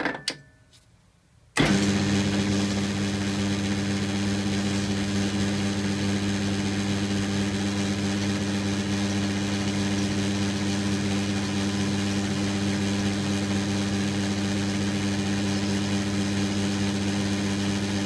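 A few light clicks, then about a second and a half in a metal lathe starts up suddenly and runs steadily with a strong, even motor hum.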